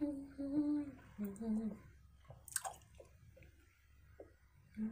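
A woman hums a few steady notes through closed lips while chewing a large wad of five pieces of bubble gum. The humming stops and gives way to wet chewing clicks, with one sharp smack about halfway through.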